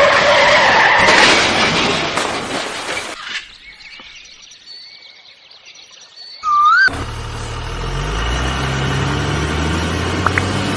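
Vehicle engine sound, added to the toy scene: a loud noisy engine sound for about three seconds, a quieter stretch with a few bird chirps, then a low engine rumble whose pitch climbs slowly through the last few seconds.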